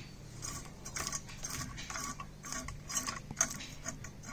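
A blade scraping the scales off a whole hilsa fish: repeated short scraping strokes, about two or three a second.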